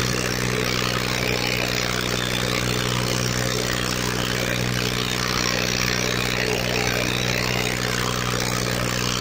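Farmtrac 45 tractor's three-cylinder diesel engine running steadily under heavy load, pulling two disc harrows in tandem through ploughed soil.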